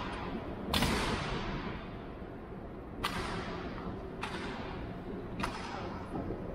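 Honor guards' drill strikes on a stone floor: four sharp cracks a second or so apart, the first the loudest, each ringing out in a long echo through the large stone hall.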